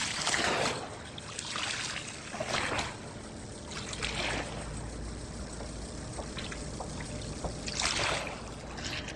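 Water splashing in short bursts, about five times at irregular intervals. A low steady rumble joins about four seconds in.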